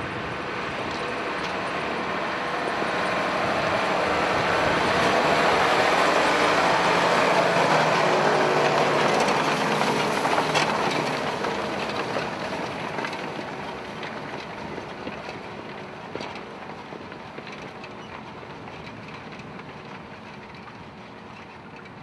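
Valtra T153 tractor's six-cylinder diesel engine pulling under load as it drags a four-furrow plough through the soil. It grows louder as it comes close, loudest about six to ten seconds in, then fades steadily as it pulls away, with a couple of sharp knocks along the way.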